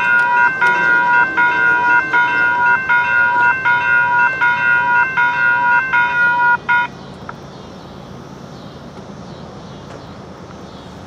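Railroad crossing bell ringing at about two strokes a second while the gate arms lower, then cutting off suddenly about seven seconds in as the gates come down.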